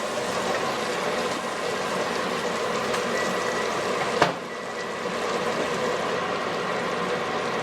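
Pork sizzling as it fries in a pan: a steady hiss, broken by one sharp click about four seconds in.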